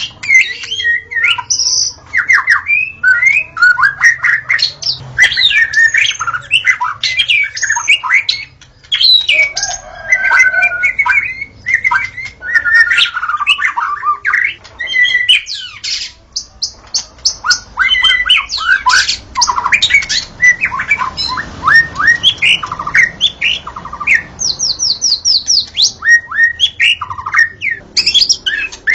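White-rumped shama singing on and on: a fast, varied song of whistles, chattering phrases and trills with hardly a pause, including runs of quick repeated high notes about halfway through and again near the end.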